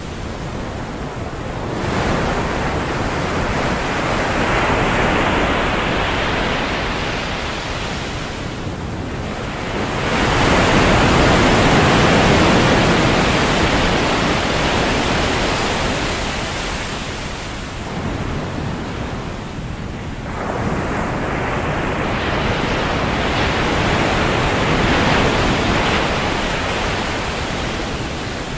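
Ocean surf on a beach: three waves surge in and wash back, each swelling up and then fading, about 2, 10 and 20 seconds in.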